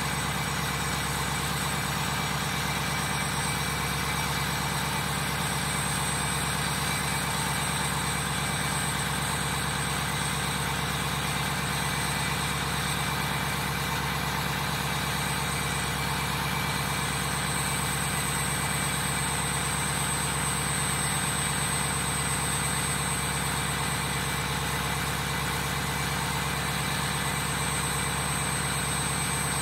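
Ford 6.0 Powerstroke V8 turbodiesel idling steadily at the exhaust tip, still warming up a few minutes after a cold start in freezing weather.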